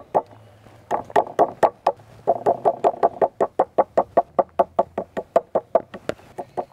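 Kitchen knife knocking rapidly on a wooden chopping board as it cuts and taps slices of raw abalone to tenderize them, about five knocks a second. There is a short pause after the first knock, then an unbroken run from about two seconds in.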